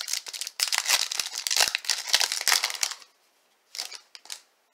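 Foil wrapper of a Topps Chrome trading card pack crinkling and tearing as it is opened: a dense crackle for about three seconds, then two brief rustles.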